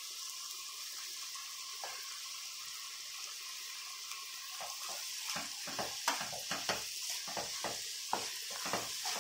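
Vegetables sizzling in a pan over a high flame, a steady hiss. About halfway through, a wooden spatula starts scraping and knocking against the pan and plate in quick irregular strokes as cooked rice is spooned in and stirred.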